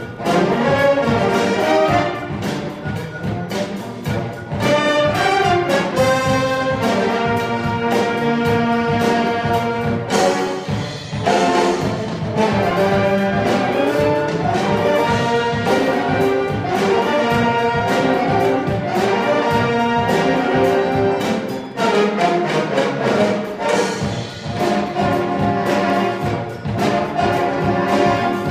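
A large saxophone ensemble with brass and a drum kit playing a jazz tune live, many saxophones sounding together in chords and moving lines.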